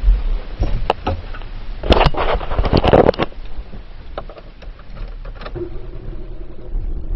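Low rumble of a car heard from inside the cabin, with a few clicks about a second in and a burst of knocks and rattles from about two to three seconds in.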